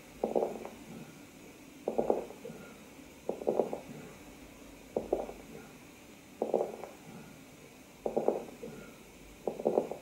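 Stethoscope recording of a patient's lung sounds with crepitation, made after the patient has coughed. It is a short crackling burst with each breath, seven times at about one-and-a-half-second intervals. Crepitation is the late-inspiratory crackling of alveoli that hold a small amount of fluid, their walls separating with difficulty at the end of inspiration.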